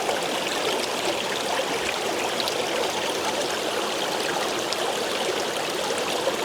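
Steady rushing and trickling of lake water washing against the shore of Kootenay Lake.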